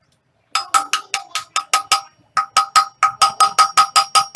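Rapid hammer blows on metal, about five a second with a short break about two seconds in, each one ringing: a hammer driving the 6202 front wheel bearing of a Yamaha R15 v2 in or out of the wheel hub.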